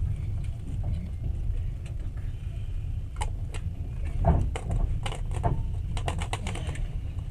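Passenger train running, heard from inside the carriage: a steady low rumble with a run of sharp, irregular clicks and rattles from about three seconds in.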